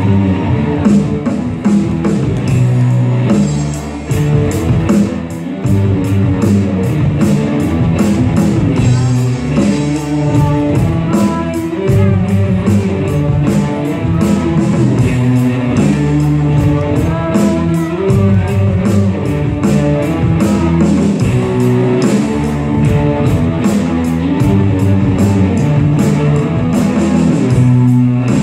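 Live rock band playing a heavy riff: electric guitars and bass over a drum kit, with steady, evenly spaced cymbal strokes.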